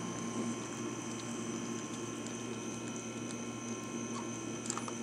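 A steady electrical hum with soft scuffling and rustling of puppies pawing and mouthing at a hand on straw-covered dirt, and a few faint clicks near the end.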